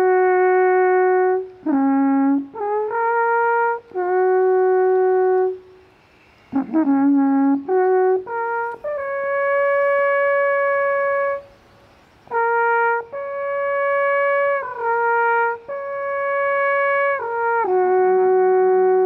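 Wooden alphorn playing a slow melody of long held notes that step between pitches, with short pauses about six and twelve seconds in.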